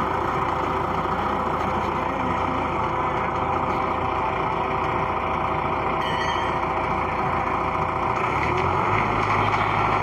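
Concrete mixer truck running steadily with its drum turning as it discharges concrete; near the end the engine's low hum steps up in pitch as it revs higher.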